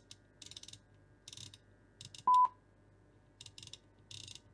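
A multimeter's continuity beeper gives one short, steady, high beep about two seconds in, amid soft bursts of clicking from the Haefely PESD1600 ESD tester's rotary encoder being turned through its detents. The beep marks an encoder contact closing to ground on that pin.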